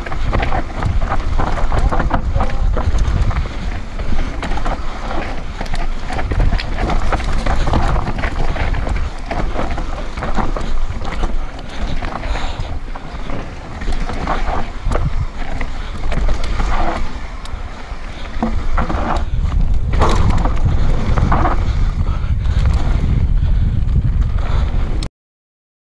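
Wind buffeting an action camera's microphone on a fast mountain-bike descent, mixed with rattling and knocking from the bike and its tyres on a rough dirt trail. It cuts off abruptly near the end.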